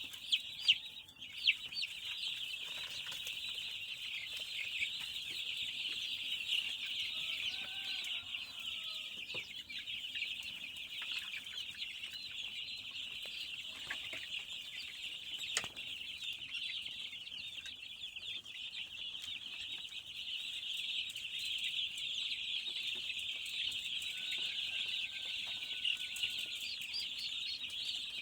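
A flock of young chickens peeping continuously in a dense, high-pitched chorus, with a few lower, separate calls standing out now and then and a few short knocks.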